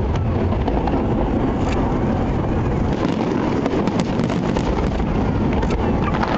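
Fireworks going off continuously: a steady low rumble of bursts with many sharp pops and crackles.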